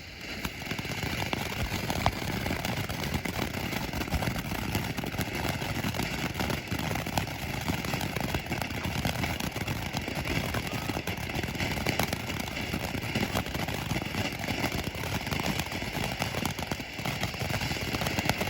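Two-tube fountain firework (Fiery Meadow Flower) catching about half a second in, then spraying sparks with a steady hissing rush and scattered crackles.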